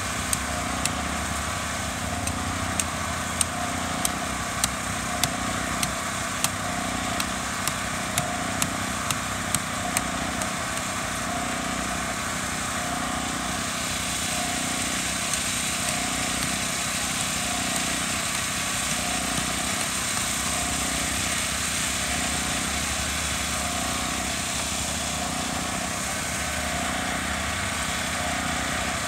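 A small engine running steadily. About fifteen sharp clicks come over the first ten seconds, then stop.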